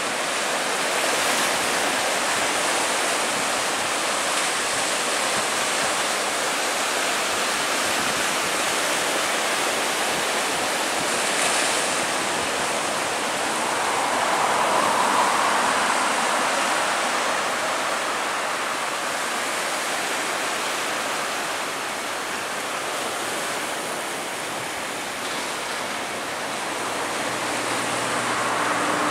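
Boeing 777-212 jet airliner on final approach, its engines a steady distant rushing roar. Low, steady engine hum tones come in near the end as it draws closer.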